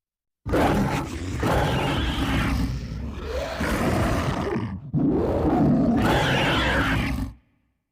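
Kothoga monster roars, growling sounds voiced by a man. One long roar starts about half a second in. A second roar begins abruptly about five seconds in and stops near the end.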